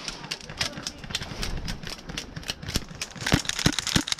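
Footsteps crunching through dry leaves and twigs, with a constant crackle of snapping brush. Near the end the steps grow heavier, about three a second.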